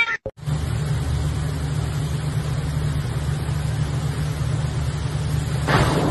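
Steady low rumble of moving water, with a short louder rush of spray near the end as a water jet shoots up.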